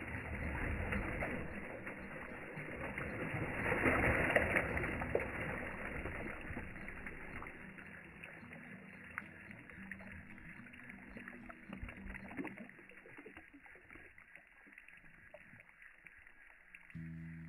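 Lake water splashing and churning after something heavy plunges in. The rush swells about four seconds in, then fades as the water settles. Music starts near the end.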